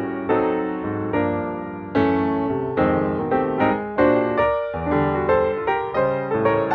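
Background piano music: a steady run of notes, each struck and then fading.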